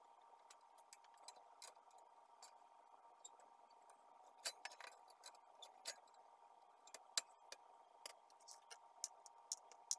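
Irregular light clicks and taps as hands handle the metal and plastic frame of a partly disassembled laser printer, over a faint steady hum.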